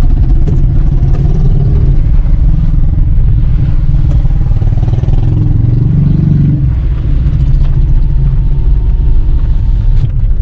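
Loud low rumble of a car heard from inside the cabin as it creeps along a rough dirt road: engine and tyre noise.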